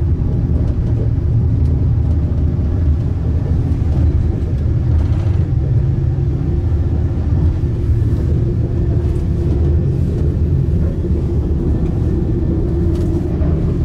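Italo high-speed train running at speed, heard from inside its toilet compartment: a loud, steady, deep rumble of the train in motion.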